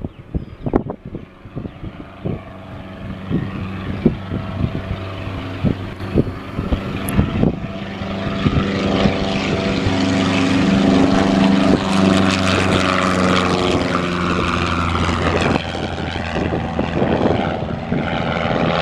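1975 Piper PA-28R-200 Arrow's four-cylinder Lycoming engine and propeller at full takeoff power: a steady drone that grows louder as the plane accelerates down the runway and passes. It keeps running as the plane lifts off and climbs away.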